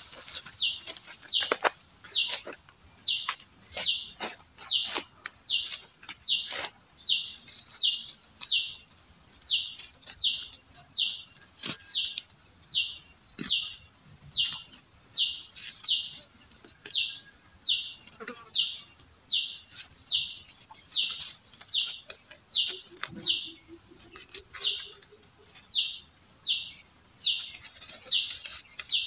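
A bird calling over and over with a short falling note, about one and a half a second, over a steady high insect drone. Dry leaf litter crackles now and then as a hand picks termite mushrooms.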